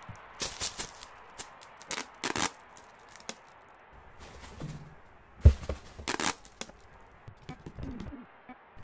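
Irregular crinkling and crackling of plastic sheeting, with a low thump about halfway through.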